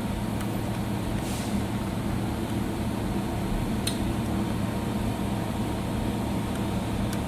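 Steady low hum of running machinery, with a few faint clicks.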